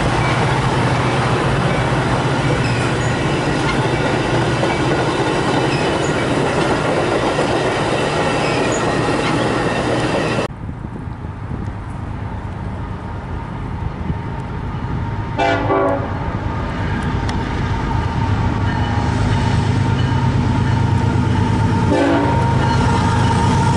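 Diesel train passing close with heavy rolling noise and a low engine hum, cut off suddenly about ten seconds in. Quieter track sound follows, with two short horn toots. Then another train rolls in loud, with a steady high ring near the end.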